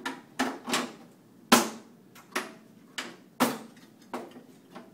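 Sharp knocks and clanks as the top piece of a Mills slot machine is fitted back onto the mechanism: about nine irregular knocks, the loudest about a second and a half and three and a half seconds in.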